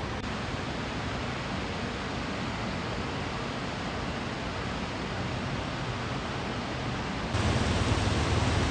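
Steady rushing noise of a large waterfall. About seven seconds in it turns louder and deeper.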